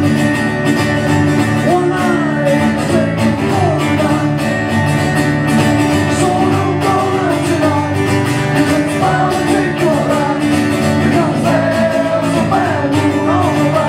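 Acoustic guitar music with a singing voice carrying the melody.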